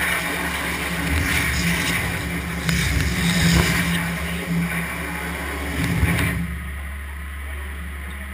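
Industrial CNC cutting machine working on 5 mm plywood: a loud steady hiss over a low motor hum. About six seconds in the hiss cuts off, leaving a quieter steady hum.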